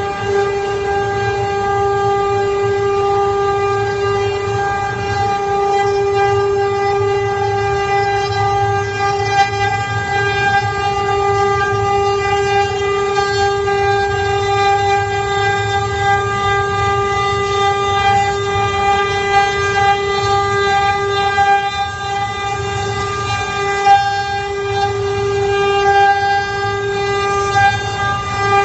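CNC wood carving router spindle running with a steady high-pitched whine at constant speed, over a low rumble from the machine at work.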